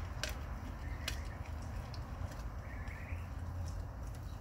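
Dog crunching a raw turkey neck, giving a few short sharp cracks of bone over a low steady rumble; a short bird chirp about three seconds in.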